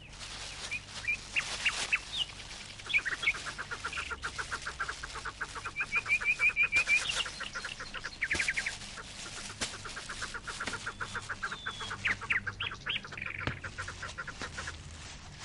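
Birds calling: scattered high chirps and long, fast runs of short clucking notes, each run lasting a few seconds.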